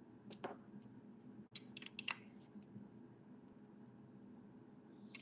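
Faint clicks and taps of a metal fork dipping into a small cup of melted white chocolate and drizzling it: one click about half a second in, a small cluster around two seconds in, another near the end, over a low steady room hum.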